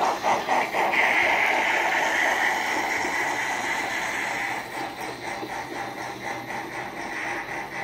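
Sound-decoder steam locomotive of a Märklin H0 model of the DB class 01, played through its small built-in speaker: rhythmic chuffing, about three beats a second. About a second in, a long hiss of steam rises over it and fades away after a few seconds, after which the chuffs go on, quieter.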